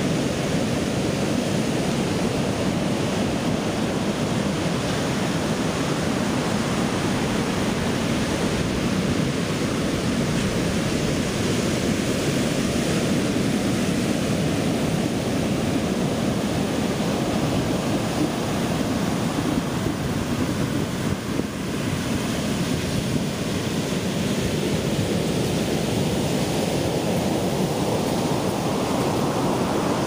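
Pacific Ocean surf breaking and washing up a sandy beach: a steady, continuous rush of waves.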